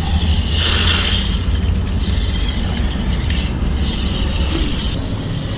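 Steady low engine hum, with a hissing rush that swells in the first second and again around the middle.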